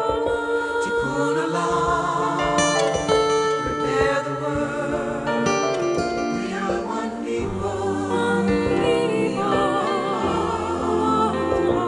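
Music: choral singing on held notes over instrumental accompaniment, with no words made out.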